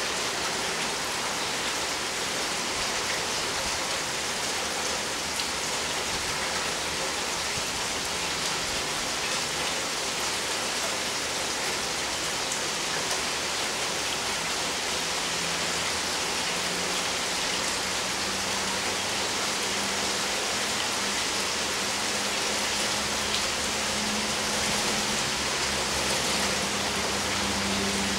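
Steady rain falling and pattering on surfaces during a thunderstorm. A faint low hum comes in about halfway through.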